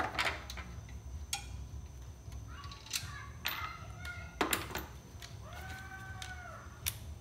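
Scattered metallic clicks and knocks of hand tools and fasteners being handled, with a short whine that rises, holds and falls about six seconds in.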